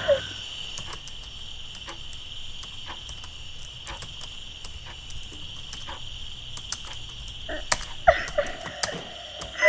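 Night-time ambience of crickets chirring steadily, with scattered sharp clicks that come more often near the end.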